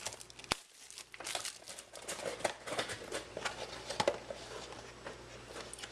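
Plastic packaging crinkling and crackling as a trading-card box is handled and opened, with a sharp click about half a second in.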